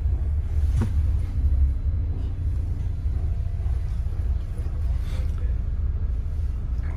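Steady low rumble of a double-decker bus running, heard from inside on the upper deck, with one short knock about a second in.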